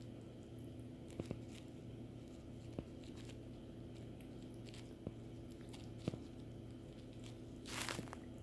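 Faint clicks and taps from a playing kitten over a steady low hum, with a short rustle near the end.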